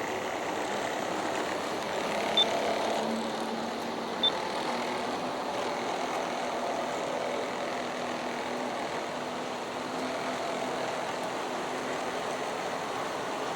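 G-scale model coal train running on outdoor track: a steady rolling rumble of metal wheels on rail with a faint motor hum, and two small clicks a couple of seconds apart early on.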